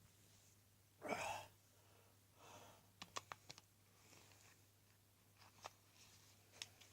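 A single short, sharp burp about a second in, followed by a softer breath out and a few faint mouth clicks.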